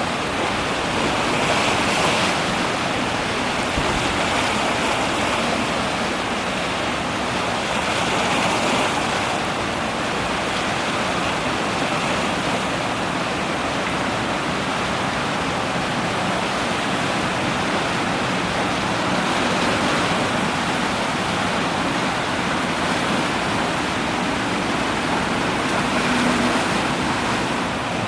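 Steady rushing noise of wind and water, swelling gently every few seconds.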